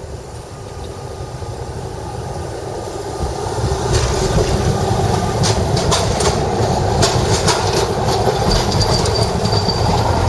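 Electric city tram passing close by: its rumble grows louder about three and a half seconds in and stays loud. The wheels give a run of sharp clicks on the track, and a brief high wheel squeal comes near the end.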